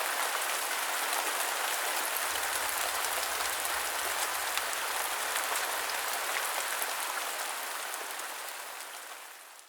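Steady rain falling, an even hiss with scattered drop ticks, fading out near the end.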